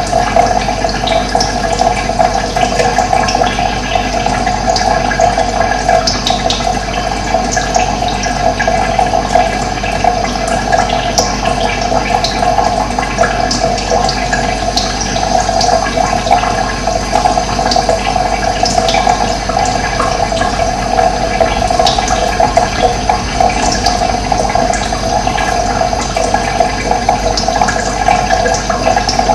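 Running water flowing steadily and evenly, with scattered short, high bird chirps over it.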